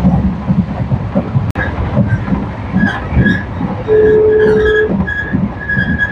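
Passenger train running, with the rhythmic clatter of wheels on rail joints over steady running noise. A single steady tone sounds for about a second around four seconds in, and the sound briefly cuts out about a second and a half in.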